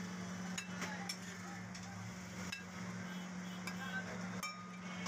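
Metal spatula scraping and clinking against a large flat griddle and a ceramic plate as fried food is scooped up and served, with a few sharp clinks over a faint sizzle. A steady low hum runs underneath.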